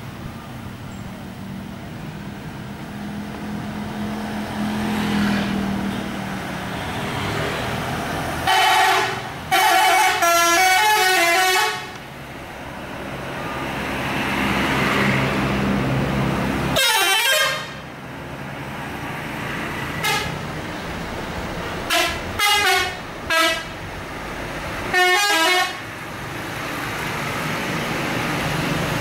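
Telolet horns on tour buses: multi-note air-horn tunes played in loud bursts, the longest a stepping melody about eight seconds in, then shorter blasts including three quick toots near the end. Bus engines and road traffic rumble between them.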